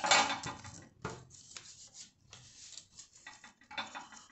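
Sheets of paper rustling and sliding as they are handled on a glass table top: one loud rustle in the first half second, then short, fainter rustles and scrapes.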